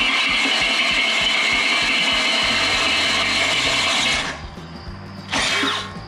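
Cordless drill boring into the steel of an excavator blade, the bit cutting metal with a steady high whine that stops about four seconds in, then a brief second burst near the end. Background music with steady low notes runs underneath.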